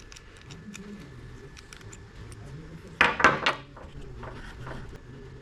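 Small metal parts clicking and clinking as the worn die is handled out of an air nibbler, with a louder clatter of metal about three seconds in.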